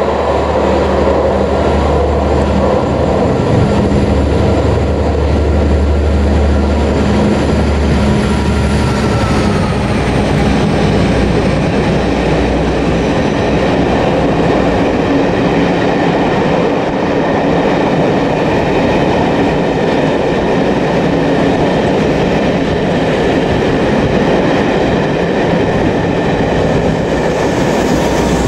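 Class 57 diesel locomotive with its EMD engine drone passing close by; its whine drops in pitch about nine seconds in as it goes past. Then comes the steady rumble of the Pullman coaches' wheels on the rails as the train runs through.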